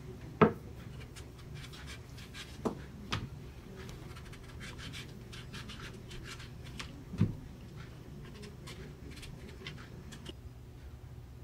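Kitchen knife peeling the skin off a breadfruit: a run of short, quick scraping cuts, with a few sharper knocks mixed in, the loudest about seven seconds in, over a low steady hum.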